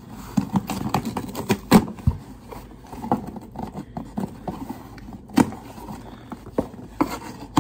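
Packaging being handled and opened: irregular crinkling, rustling and knocking, with a few sharper snaps at about two, five and a half and seven seconds in.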